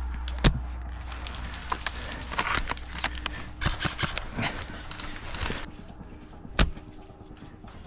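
Two sharp cracks about six seconds apart, the loudest near the end: shots from a bolt-action spring airsoft sniper rifle (VSR-10). Between them, twigs and leaf litter crackle and rustle as the shooter moves.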